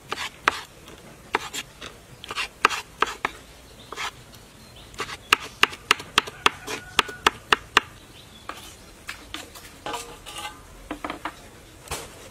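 Kitchen knife chopping peeled aloe vera gel into cubes on a wooden cutting board: sharp knocks of the blade on the board, irregular at first, then a quick even run of about four strokes a second in the middle, with fainter strokes near the end.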